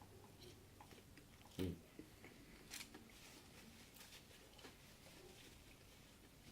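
Faint chewing and mouth sounds of someone eating chili cheese dogs and fries, with soft scattered clicks and one brief, louder low sound about one and a half seconds in.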